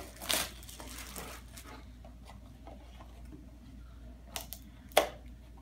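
Plastic wrapping and a small cardboard mystery box being handled, making a few short crinkles and rustles with quieter stretches between, the sharpest two near the end.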